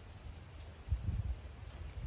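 Low rumble of wind buffeting the microphone, swelling into a stronger gust about a second in.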